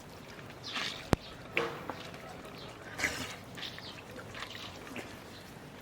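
Eating noises during a meal: scattered small taps and clinks of plates and food being handled, with faint voices, and one sharp click about a second in.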